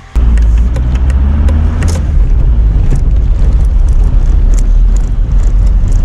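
VW T4 van driving, heard from inside the cab: a loud, steady low rumble of engine and road with scattered knocks and rattles. It cuts in abruptly at the start.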